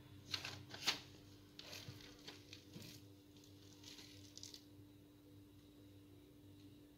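Faint handling sounds: a few soft taps and brushing rustles as a coconut-coated lamington is picked up off a wire cooling rack, the two clearest taps in the first second. A faint steady hum runs underneath.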